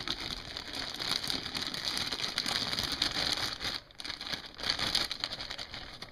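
Clear plastic zip-top bag crinkling and crackling as it is tipped and shaken to empty wet fruit and vegetable juice pulp into a stainless steel compost bin, with a brief pause about four seconds in.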